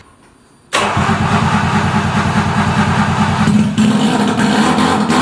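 Subaru Sambar's 360cc two-stroke engine starting up after sitting for half a year: the engine sound comes in suddenly under a second in and runs on loud and steady with a fast low beat.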